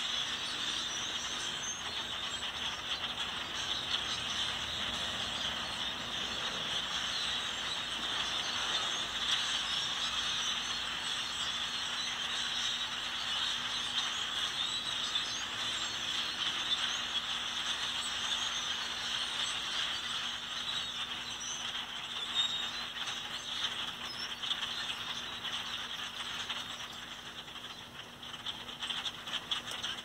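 A large flock of small dark birds calling all at once: a dense, continuous chatter of many overlapping calls, a little quieter near the end.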